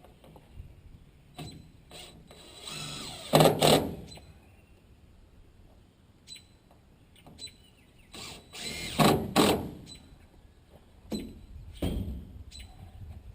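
Cordless impact driver driving screws in short bursts, the loudest about 3 seconds and 9 seconds in, with a shorter one near the end.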